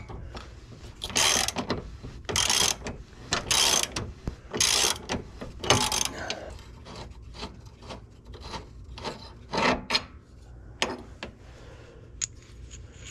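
Ratcheting wrench clicking as it turns the nut on a Porsche 996's front tuning-fork control arm bolt. About five strokes, roughly a second apart, come first, then lighter scattered clicks.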